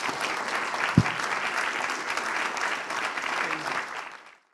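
Audience applauding steadily, a dense patter of many hands clapping, which cuts off suddenly near the end. A single thump about a second in.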